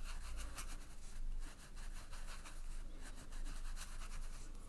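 Watercolour brush scrubbing and dabbing wet paint on cold-pressed cotton watercolour paper. It makes a run of soft, irregular scratchy strokes as the bristles rub the paper's texture while two colours are blended.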